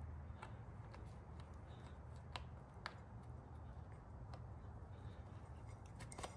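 Faint, scattered light clicks of metal parts and tools being handled as a motorcycle foot-peg part is lined back up, over a low steady hum.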